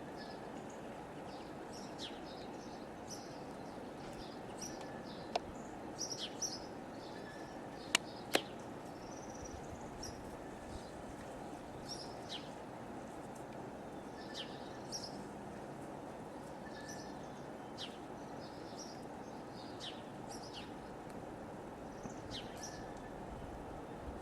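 Small birds chirping and calling in short, scattered notes over a steady low background noise, with a few sharp clicks, two of them close together about eight seconds in.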